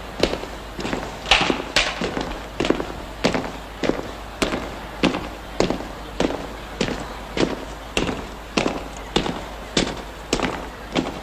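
A steady rhythm of sharp cracks, about three every two seconds, each with a short ringing tail.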